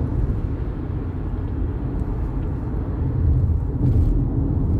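Steady low rumble of a moving car heard from inside the cabin, engine and road noise, growing a little louder about three seconds in.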